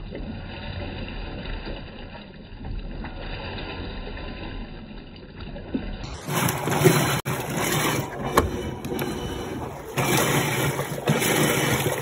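Electrolux Turbo Limpeza 10.2 kg top-loading washing machine running with water in the drum on a replacement control board, a steady churning. About halfway through the sound jumps louder and brighter, with a few sharp knocks.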